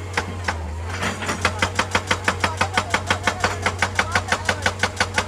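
Excavator-mounted hydraulic breaker hammering rock: a rapid, even run of sharp strikes, about eight a second, that pauses for roughly the first second and then resumes. The excavator's engine hums steadily underneath.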